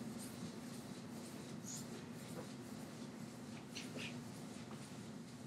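Chalkboard eraser wiping across a blackboard in a few faint, short swishes, over a steady low hum.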